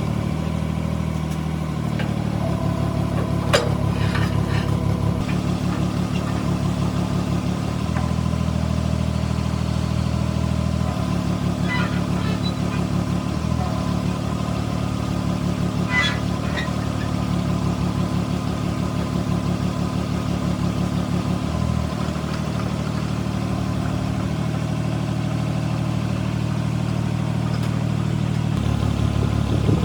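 A machine's motor running steadily with a low, pulsing hum that shifts in strength several times, with a few sharp clicks, about a third and halfway through.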